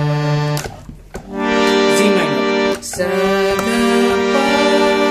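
Harmonium reeds sounding held notes and chords. The first held sound stops about half a second in; after a short gap, new chords are held with a brief break near the three-second mark, and the notes change a few times after it.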